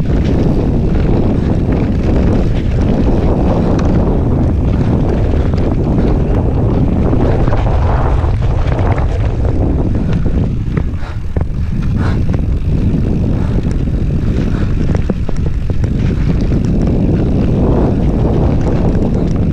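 Mountain bike rolling fast over rough trail, wind rumbling steadily on the camera microphone with many small clicks and rattles from the bike over the ground.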